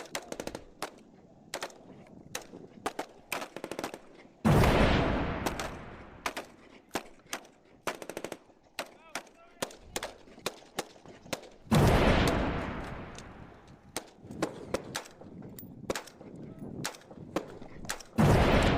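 Airsoft replicas firing: scattered sharp snapping shots, some in quick runs. Three times, about a quarter of the way in, two-thirds in and near the end, a loud sudden rushing blast cuts in and fades away over a second or two.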